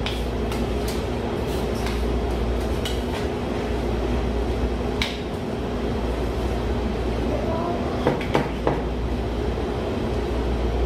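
Steady mechanical hum with a low rumble, the kitchen's running equipment, with a few light clinks of a whisk against a stainless saucepan as a thick sauce is stirred.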